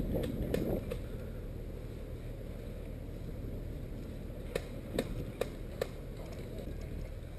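Four sharp snapping cracks a little over halfway through, evenly spaced about 0.4 s apart, typical of airsoft shots fired one at a time nearby, over a steady low rumble of wind and handling noise on the microphone.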